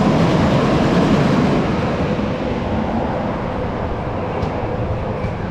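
A rail vehicle rumbling along its track, loudest about a second in and slowly easing off.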